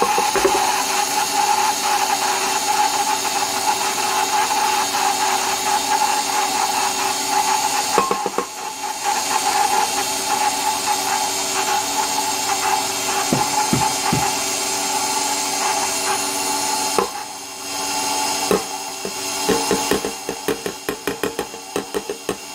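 KitchenAid stand mixer running, its flat beater churning thick oatmeal cookie dough in a stainless steel bowl as ground oats are beaten into the creamed butter, sugar and egg. A steady motor whine with fast, even knocking from the beater. It turns softer and choppier for the last few seconds.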